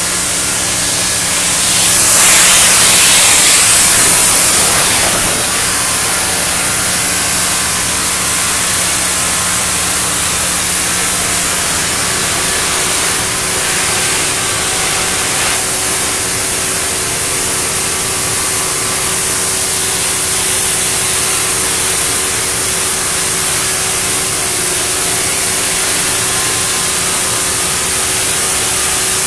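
Steady loud hiss of several cutting torches burning through wet steel plate, with steam coming off the wet metal. The hiss swells for a few seconds near the start, and a low steady machine hum runs underneath.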